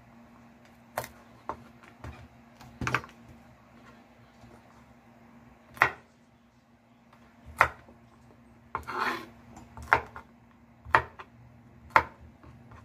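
Kitchen knife chopping yardlong beans on a wooden cutting board: about ten sharp, irregular knocks of the blade hitting the board, with a steady low hum underneath.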